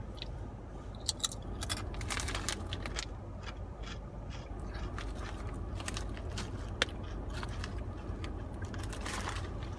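Crunching and chewing of queso-flavoured Ruffles potato chips: irregular crisp crunches, thickest in the first few seconds and then sparser, over a steady low hum from the car's heater.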